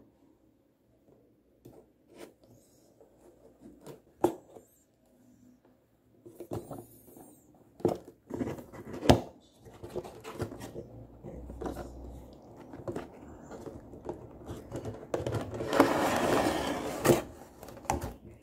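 Cardboard toy box being opened by hand, with scattered taps and scrapes of the flaps and sleeve. The clear plastic blister tray then slides out of the box with a longer rustling scrape near the end.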